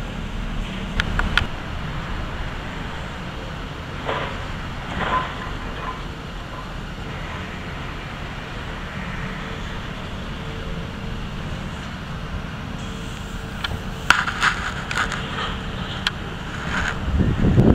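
Steady outdoor traffic noise with wind buffeting the microphone, a few sharp clicks about a second in, a cluster more near the end, and a louder gust of wind noise at the very end.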